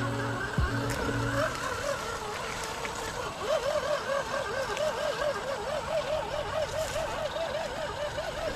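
Electric motor and gear whine of a 4x4 RC crawler. From about a third of the way in, its pitch wavers up and down about four times a second.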